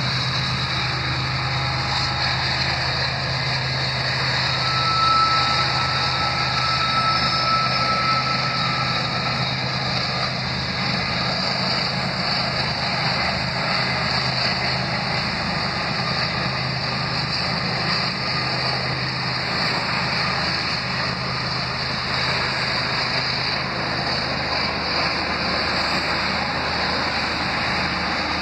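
A CSX freight train rolling past mixed with road traffic: a steady rumble and hiss, with a thin high squeal for a few seconds about five seconds in.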